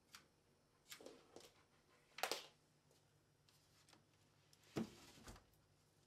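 Faint clicks and knocks as cable plugs are pulled from the rear ports of a desktop computer tower. The loudest click comes a little over two seconds in, and a duller thump comes near the end as the tower is handled.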